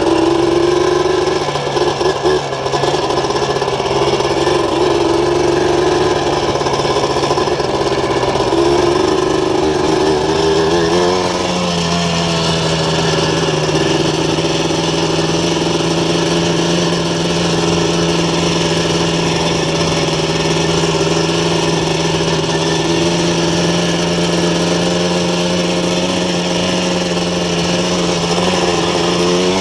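Yamaha Blaster's 200cc two-stroke single-cylinder engine, fitted with a full aftermarket exhaust, running steadily under way on a dirt trail. The note wavers, then rises a step in pitch about eleven seconds in and holds there.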